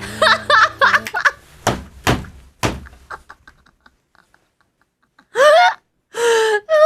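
A woman laughing hard in high-pitched squeals as music fades out, then several sharp knocks, a short pause, and two long squeaky laughing cries near the end.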